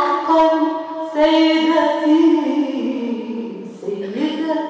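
A woman singing solo, unaccompanied, in Arabic: long drawn-out notes that bend in pitch, with a short break about three and a half seconds in before the next phrase.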